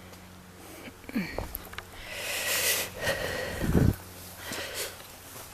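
A person breathing hard with exertion while crawling under a fallen tree, with rustling and a loud thump a little before four seconds in.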